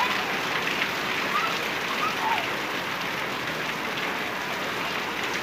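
Heavy rain falling steadily on a paved street.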